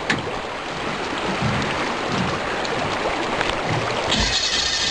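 Jet boat engine running with water rushing as the boat runs through shallow water; about four seconds in, a high whine joins for under two seconds.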